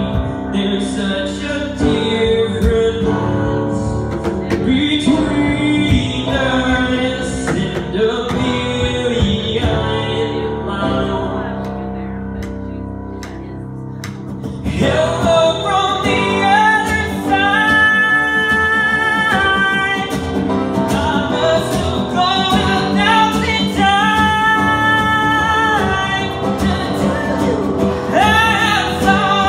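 A young man sings live into a handheld microphone, backed by keyboard and guitar. The music drops to a softer passage a little before halfway, then the voice comes back strongly with long held high notes.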